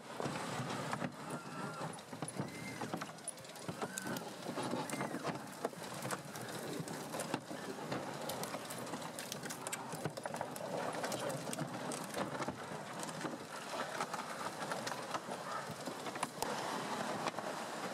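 MTT-136 rubber-tracked robotic vehicle driving over a forest floor: a continuous clattering, crunching running noise of the tracks over brush and fallen branches, broken by many sharp cracks and snaps.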